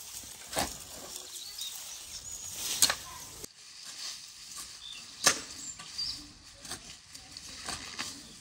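Garden shovel digging into soil: three sharp strikes of the blade, spaced about two and a half seconds apart, the last two the loudest. Faint bird chirps in the background.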